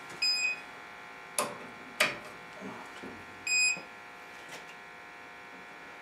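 Bacharach Informant electronic combustible gas leak detector giving two short high beeps about three seconds apart, its signal that it has picked up gas at the probe tip. Two sharp clicks fall between the beeps.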